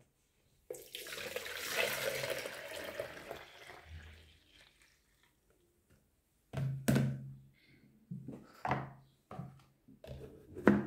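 Pineapple juice poured from a plastic tub into a plastic jug: a splashing pour that fades away over about four seconds. Then come a few sharp knocks and clicks as the plastic tub and jug are handled.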